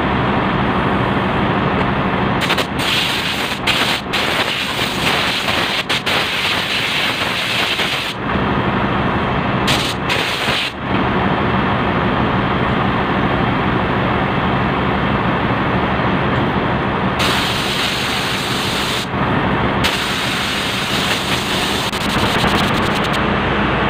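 Compressed-air hose hissing in several bursts, the longest about five seconds, as a cylindrical filter element is blown clean, over the steady drone and hum of a ship's engine-room machinery.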